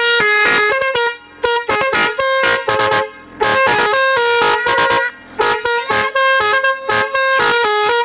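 Three-trumpet telolet air horn playing a quick melody of short, stepping horn notes, broken by brief pauses.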